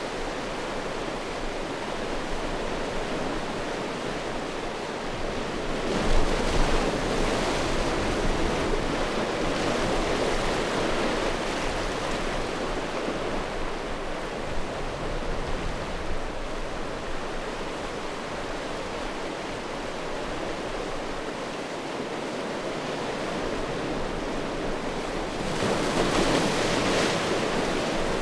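Sea waves washing in over a shore of rounded stones in a steady wash, swelling louder as a wave comes in about six seconds in and again near the end.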